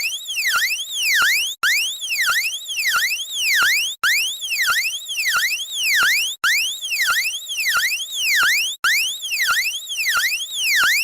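Electronic emergency-alert alarm tone, a synthetic siren whose pitch sweeps rapidly up and down. The pattern repeats about every two and a half seconds, broken by very short dropouts between repeats.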